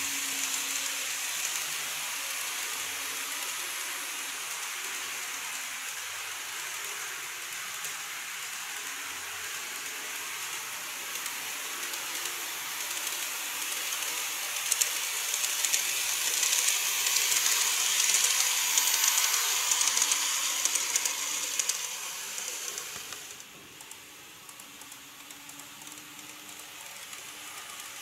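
Model electric trains running on layout track: a steady hissing rattle of wheels and motors with small clicks. It grows louder as a train runs close past in the middle, then drops off suddenly a few seconds before the end.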